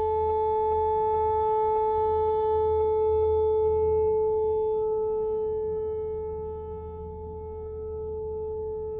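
Whelen WPS-4004 electronic outdoor warning siren sounding a steady, unwavering tone during its monthly test, heard from inside a car. The pitch stays level while the loudness swells and fades as the rotating speaker head turns, dipping about two-thirds of the way through and coming back up near the end.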